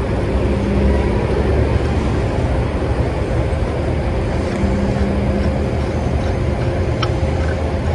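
Truck engine idling steadily, with a short sharp click about seven seconds in.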